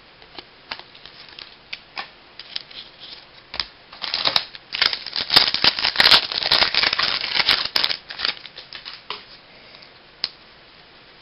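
Baseball trading cards being handled and flipped through: scattered soft clicks and flicks, with denser rustling and sliding between about four and eight seconds in.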